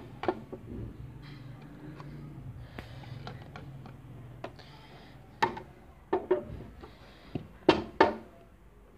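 Award shields being handled: scattered knocks and clacks with faint rustling between, louder and closer together in the last few seconds.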